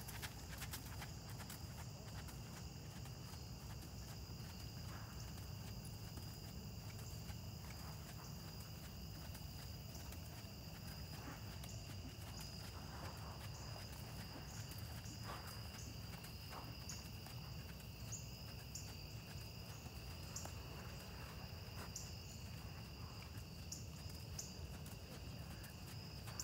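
Steady insect chorus, two unbroken high trilling tones held throughout, over a low steady rumble.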